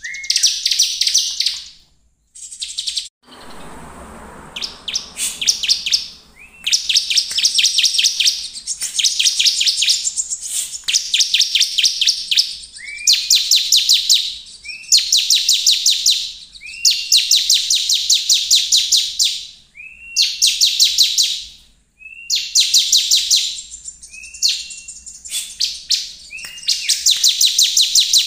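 Bar-winged prinia (ciblek) in full, persistent song: loud bursts of rapid high chip notes, each about a second long and most opening with a short rising note, repeated roughly every two seconds. A brief soft rustling noise comes about three seconds in.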